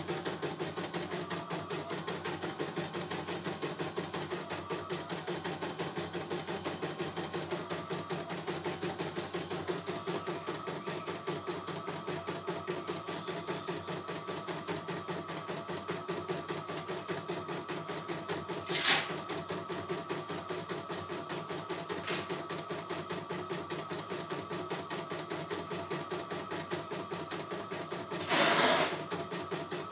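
CNY E900 computerized embroidery machine stitching a design: a fast, even chatter of needle strokes as the hoop carriage steps the fabric along. Two sharp clicks come about two-thirds of the way in, and a short, louder burst of noise near the end.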